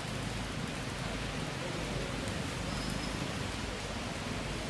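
Steady outdoor background noise: an even hiss over a low rumble, with no distinct event standing out.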